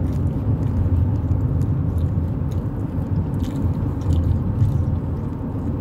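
Steady low rumble inside a car cabin, with a few faint small clicks and rustles.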